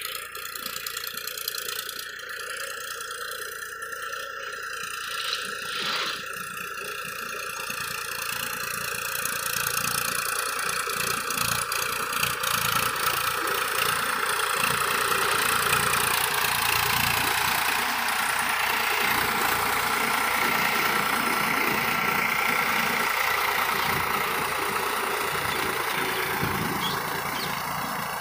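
Diesel farm tractor running steadily under load as it drives a rotavator on cage wheels through a waterlogged field, churning green-manure dhaincha into the mud. It grows louder over the first third as it comes closer, then holds steady.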